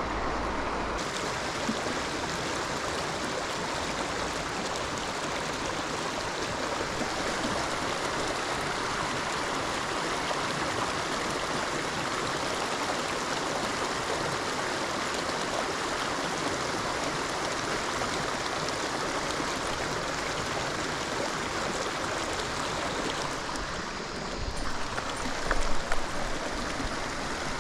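Steady rushing of river water flowing. A few low bumps sound on the microphone near the end.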